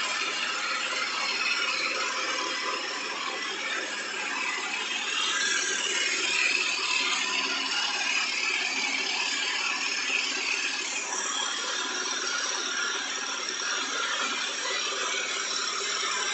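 Husqvarna Vitpilen 250's single-cylinder engine idling steadily after a cold start, the bike having stood for three days.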